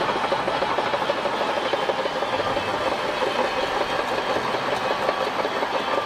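Shantui crawler bulldozer working: its diesel engine runs steadily under load while the steel tracks clatter as it pushes sand.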